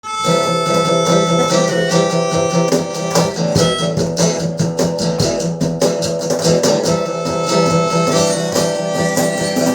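Instrumental intro of a live rock song: guitars strummed in a steady rhythm over long held notes.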